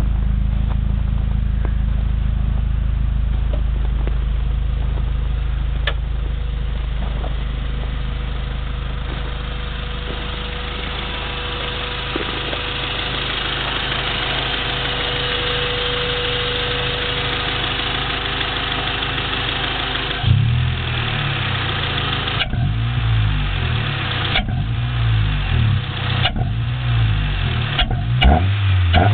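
1993 Honda Accord's 2.2-litre four-cylinder engine, running through a 2-inch Cherry Bomb muffler with no catalytic converter, idles steadily, then, about two-thirds of the way in, revs up and drops back in quick repeated blips.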